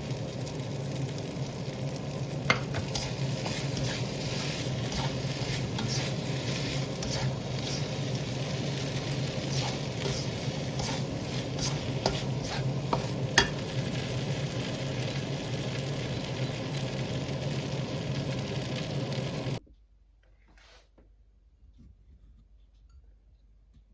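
Food sizzling in hot oil in a pan while being stirred, with occasional sharp clicks of a utensil against the pan. The sizzling cuts off suddenly near the end, leaving only faint quiet sounds.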